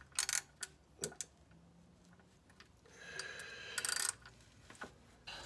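Hand ratchet clicking as it is worked back and forth on a socket, tightening an oil filter housing cap. A few separate clicks in the first second or so, then a quicker run of clicks about three to four seconds in.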